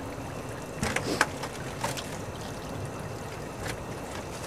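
Muddy water trickling and sloshing, with a few sharp knocks about a second in and single ones later.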